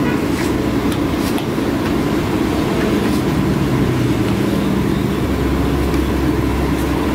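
Steady roadside traffic noise, with a low engine hum that shifts in pitch around the middle, as a vehicle runs close by. A few brief crackles near the start come from a plastic bag being handled.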